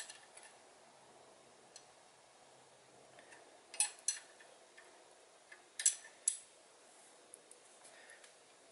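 Light metallic clicks of an Allen wrench and a combination wrench working a 6.7 Cummins rocker arm's valve lash adjusting screw and jam nut: a click at the start, a pair about four seconds in and another pair about six seconds in.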